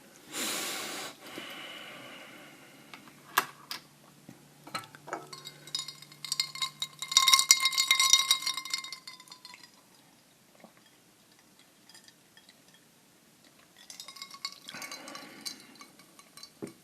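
Small toy figures being handled and set down on a hard surface. There is a rustle near the start and scattered knocks, then a loud clinking clatter with a metallic ring around the middle, and a softer rustle near the end.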